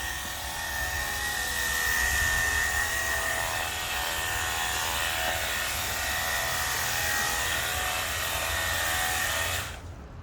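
Battery-powered cordless pressure washer running, its pump motor giving a steady high whine over the hiss of the water spray, then cutting off suddenly near the end as the trigger is released.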